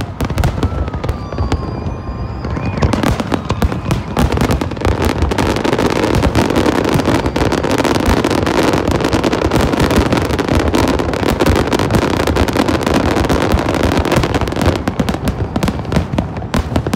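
Large aerial fireworks display in full barrage: many shells bursting in rapid, overlapping bangs and crackles, almost continuous, thinning slightly near the end.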